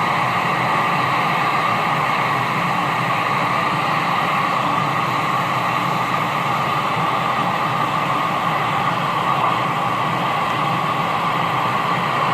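Steady static hiss from a CB radio's speaker with the squelch open, the band noise of nighttime skip between transmissions.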